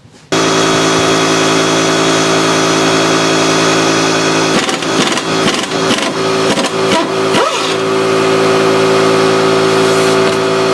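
An engine running steadily, cutting in abruptly just after the start. A stretch of irregular knocks and clatter sounds over it in the middle.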